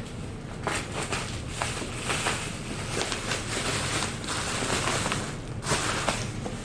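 Plastic bubble-wrap packaging crinkling and tearing as a parcel is unwrapped by hand: a steady rustle with many sharp crackles.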